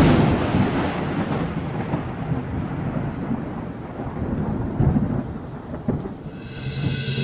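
Thunderstorm: a loud thunderclap at the start, then rolling thunder rumbles over steady rain. Music fades in near the end.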